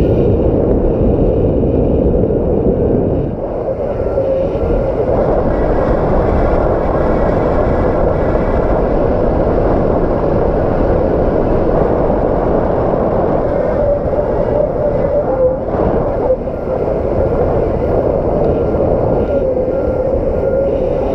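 Strong gusting wind blowing hard over the microphone, a dense, loud rush with a faint wavering whistle.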